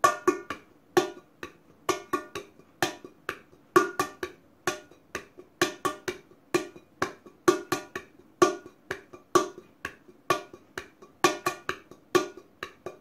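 Stainless steel cooking pot played with bare hands as a drum: a fast, repeating tumbao conga rhythm of sharp hand strokes, each with a short metallic ring.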